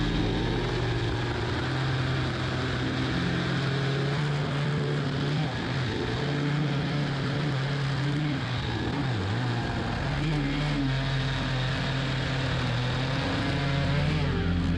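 Two-stroke chainsaw in a chainsaw mill running at full throttle while ripping a slab lengthwise off an oak log, the chain cutting steadily through the wood. The engine note wavers slightly under the load of the cut.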